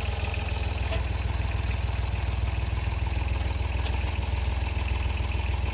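Compact farm tractor's engine idling steadily, with an even low pulse.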